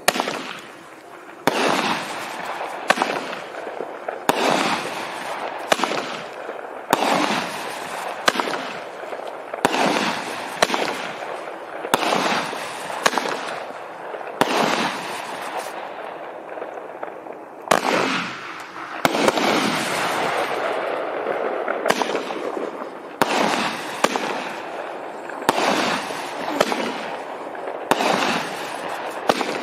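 Magnus 'Disintegrate' 350-gram, 33-shot consumer fireworks cake firing its shots one after another, sharp reports about every second and a half, with a longer unbroken stretch of bursts about two-thirds of the way through.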